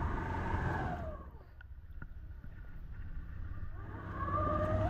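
ATV engine and drivetrain whine while the machine wades through deep floodwater. The pitch falls and the sound eases off about a second in, then rises again as the engine revs back up near the end.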